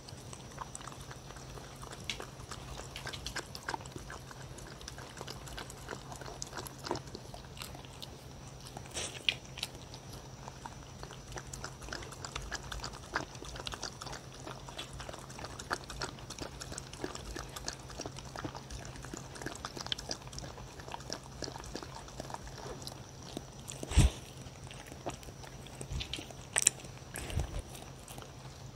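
A dog lapping and chewing a wet mash of blended banana and oriental melon from a wooden bowl: a steady run of small wet licks and smacks, with a few louder knocks near the end.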